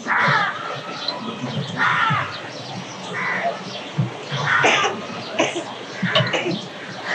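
Crows cawing repeatedly, several harsh caws spaced a second or so apart, over the low voices of people gathered.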